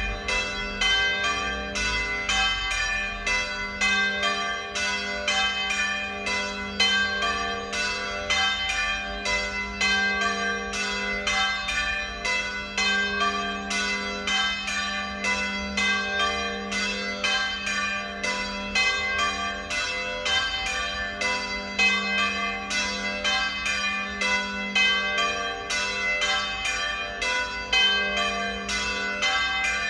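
Three church bells swinging together in a full peal (plenum), their strokes overlapping in a steady run of about two or three a second.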